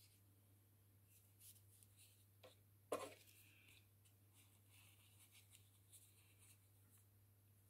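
Near silence: faint rustling and small clicks of a thin nail-art brush being wiped clean on a nail wipe, with one sharp click about three seconds in, over a low steady hum.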